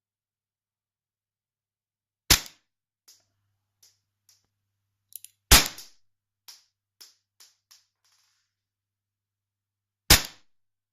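KWC P226 full-metal CO2 blowback airsoft pistol firing three single shots, about three and four and a half seconds apart. Fainter clicks come between the first two shots and just after the second.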